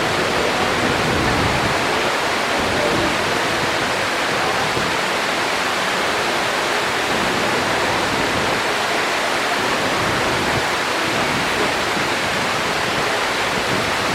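Man-made waterfall of the Mirage's front lagoon, water pouring steadily in an even rush with no break.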